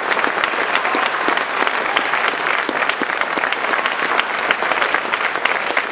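Crowd applauding: many hands clapping in a dense, steady stream.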